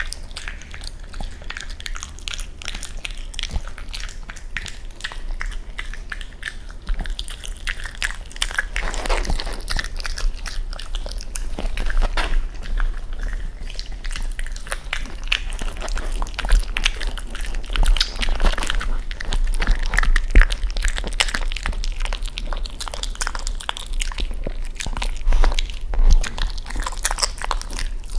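A Cavalier King Charles Spaniel chewing and crunching raw chicken, bone in: dense, irregular wet bites and bone crunches that get louder in the second half.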